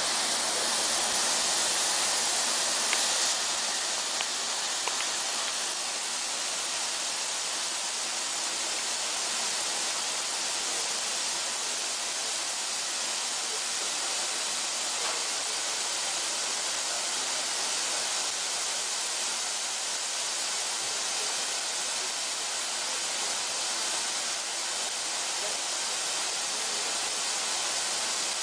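Garden hose spray nozzle sending a steady jet of water onto a gravelly green-roof growing medium of crushed brick and volcanic rock, flooding it.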